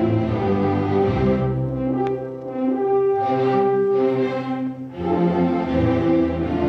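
Symphony orchestra playing held chords. The sound thins to a softer passage about a second and a half in, and the full orchestra comes back in about five seconds in.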